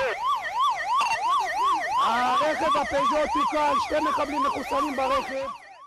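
Police car siren in fast yelp mode, its pitch sweeping up and down about four times a second, a little quicker towards the end, then cutting off just before the end.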